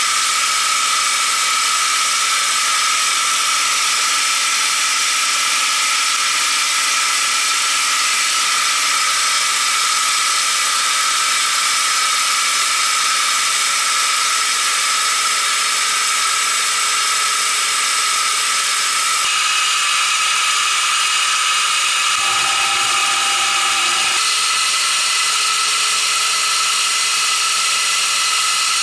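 Milling machine running steadily with a high whine while its cutter cuts the teeth of a small 20-tooth gear pinion. The sound changes abruptly about two-thirds of the way through.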